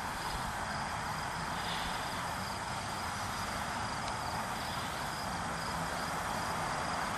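Steady outdoor background hiss with faint insects chirring continuously in the grass.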